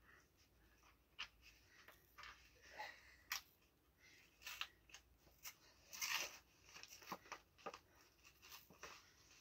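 A brown cardboard mailer envelope being pulled open by hand: faint, scattered crackles, rips and rustles of card and paper, with a longer rustle about six seconds in.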